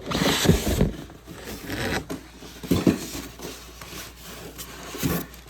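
Packing material being pulled off a boxed fan part: irregular scraping, rustling and tearing.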